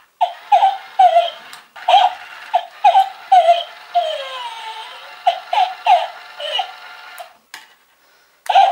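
Remote-controlled plush toy dog barking through its small speaker: a run of high, short yips, a few a second, each falling in pitch, with one longer whine about four seconds in. The barking stops briefly near the end, then starts again.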